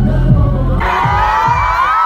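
A bass-heavy K-pop dance track gives way about a second in to a crowd of fans screaming in high, wavering shrieks.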